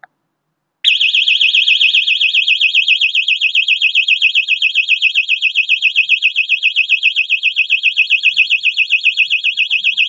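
Red warning beacon's built-in electronic siren sounding a loud, high, fast-warbling alarm tone. The timer switch's contacts have closed at the set time and fed it mains power for a 10-second on-period. It starts about a second in and keeps going without a break.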